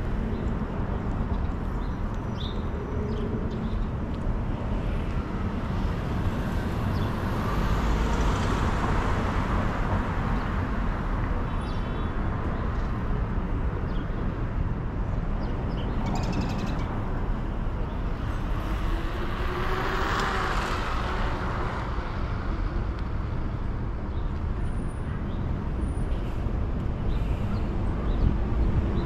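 City street traffic: a steady hum of road noise with cars passing, swelling louder twice, about a third and about two-thirds of the way through.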